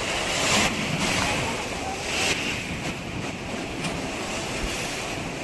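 Ocean surf washing onto a beach, a steady rushing with wind on the microphone; it swells louder about half a second in and again just after two seconds.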